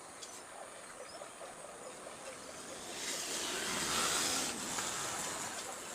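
Soldering on an inverter circuit board: a brief hiss of flux sizzling under the iron that swells about three seconds in and fades a second and a half later, with a few faint ticks around it.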